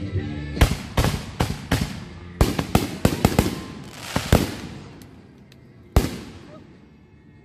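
Aerial fireworks bursting overhead: a rapid run of about a dozen sharp bangs over the first four seconds, then one last bang about six seconds in, each trailing off in echo.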